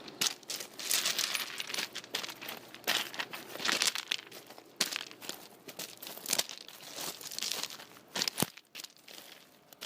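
Footsteps crunching on small loose rocks, a step about every second with the stones grinding and clicking under each footfall.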